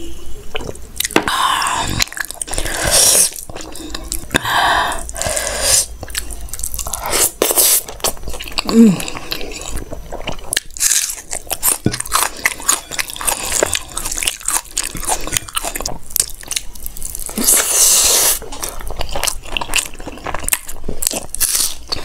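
Close-miked eating sounds from a lavalier mic: wet chewing and squishing of chickpea curry and rice eaten by hand, with crunchy bites of raw onion. Swallows of water come first.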